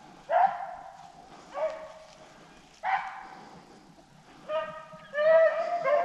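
Rabbit hounds baying while running a swamp rabbit's scent trail: a string of about six drawn-out bawls, a second or more apart at first and coming closer together, overlapping, near the end.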